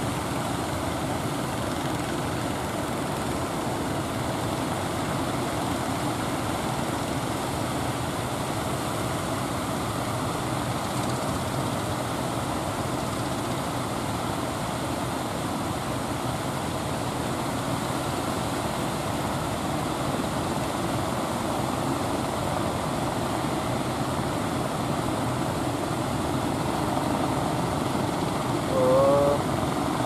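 Engines of motorised wooden fishing boats running steadily under the wash of breaking surf, growing a little louder near the end as a boat comes closer.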